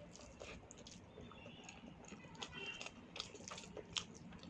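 Faint chewing and wet mouth sounds of someone eating, with small scattered clicks.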